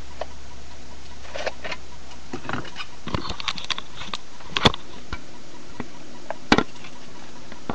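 Handling noise around a plastic hamster cage: scattered clicks, knocks and rustles as the webcam and cage are moved, with two sharper knocks a little before five and about six and a half seconds in.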